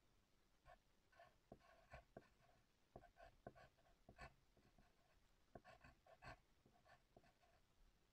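Pencil writing on paper over a wooden surface: faint, quick scratchy strokes in small irregular clusters, with sharp little ticks as the tip touches down.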